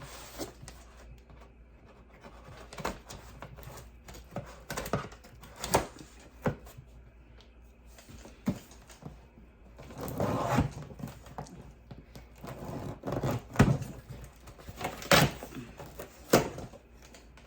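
A bread maker's cardboard box being opened and its packaging handled: scattered knocks, scrapes and rustling, busiest in the second half.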